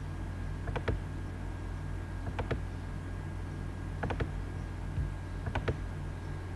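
Computer mouse button clicking in short pairs, four times about a second and a half apart, over a steady low hum.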